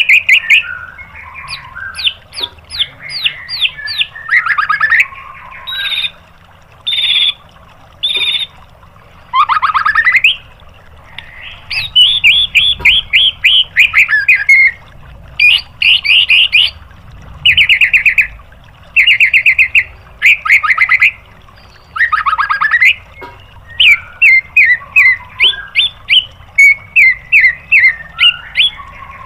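White-rumped shama (murai batu) singing a long run of short phrases, each about a second long with brief gaps between: many are fast trills of rapidly repeated notes (the 'tembakan' shots), mixed with short whistles and sweeping notes.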